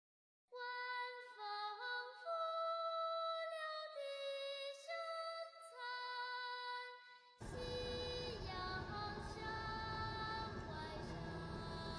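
Background music: a slow melody in a high voice, sung note by note. About seven seconds in, a steady noise comes in underneath it.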